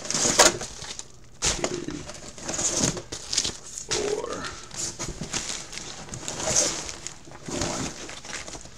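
Plastic wrapping crinkling and rustling, with squeaky scraping, as items are worked out of a tightly packed shipping case.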